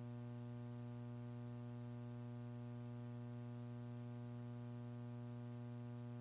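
Steady electrical mains hum with a strong low buzz and many evenly spaced overtones, carried on the countdown audio feed.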